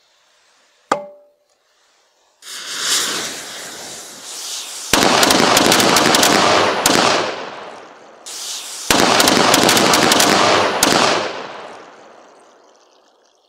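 Miniature model Katyusha rocket launcher firing: a fuse hiss builds, then two loud salvos of small rockets go off, each a dense crackling rush of about two seconds that starts suddenly and then fades. A single sharp metallic click about a second in.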